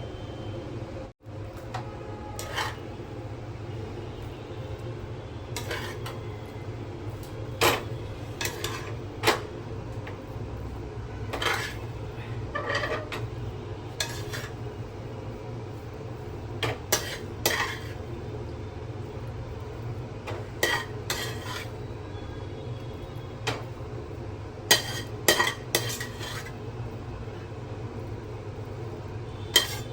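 A metal utensil scraping and clinking against the inside of a pressure cooker pot as cooked rice is scooped out, irregular clinks over a steady low hum.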